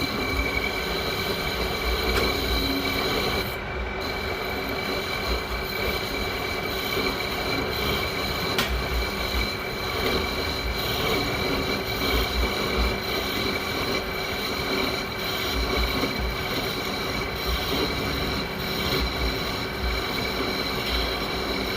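Metal lathe cutting steel, running steadily with a constant high-pitched metallic whine over a grinding machine noise.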